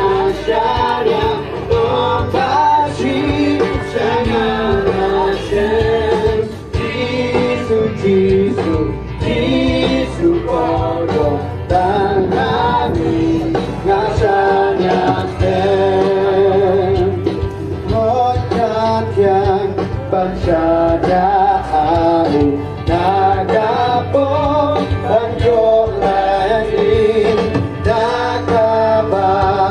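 Music with singing voices: a song with sung melody over a steady instrumental backing.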